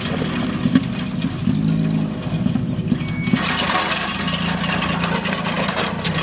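A vehicle engine running with a steady low drone. About three seconds in, a brighter hiss joins it.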